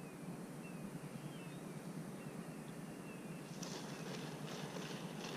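Faint outdoor background hiss with a small bird giving short, repeated, falling chirps. From about three and a half seconds in, a soft irregular rustling joins it.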